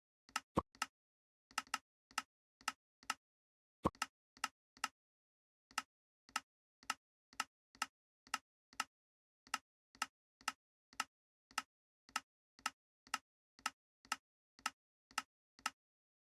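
A steady series of short, sharp ticks, about two a second and often in close pairs, with dead silence between them.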